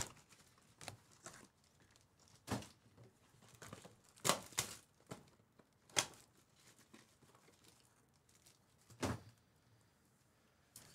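Plastic shrink wrap crinkling and rustling as it is pulled off a cardboard card box, in short, scattered crinkles a second or two apart.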